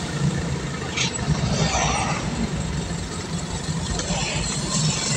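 Motor vehicle running on the road: a steady low engine hum under constant road and wind noise, with a short sharp hiss about a second in.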